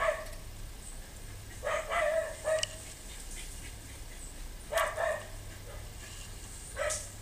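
An animal giving short barks: a few bouts of one or two barks each, a couple of seconds apart, over a steady low rumble.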